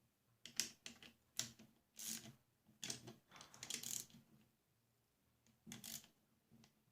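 Scattered light metallic clicks and short scrapes of hand tools working the nut and bolt that hold a belt-clip hanger on a finish nailer, in a busy run through the first four seconds and again briefly about six seconds in.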